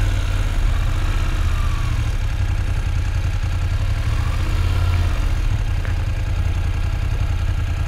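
Motorcycle engine running at low revs as the bike rolls slowly at walking pace, a steady low drone.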